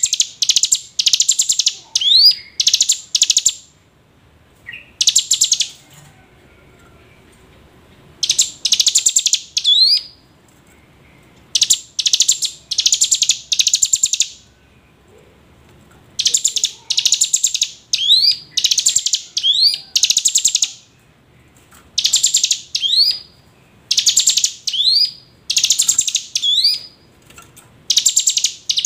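Ciblek gunung (a prinia) calling: high, fast rattling notes, each ending in a quick rising upslur, given in clusters of two to four with short pauses between.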